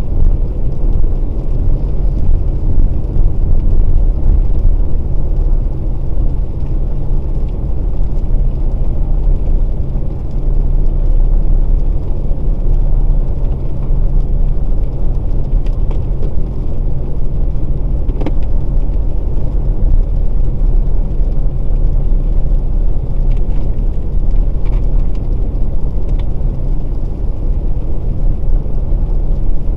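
Volkswagen Passat Variant 1.6 TDI diesel driving on a wet road: a steady low rumble of engine and tyre noise with no change in pace.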